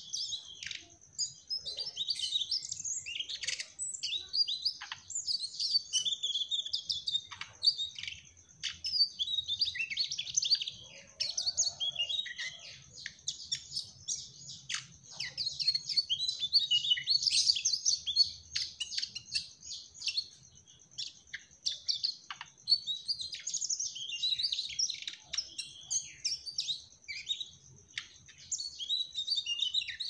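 Mugimaki flycatcher singing non-stop: a fast, rambling string of high chirps and twitters with hardly a pause. A steady faint high tone runs underneath.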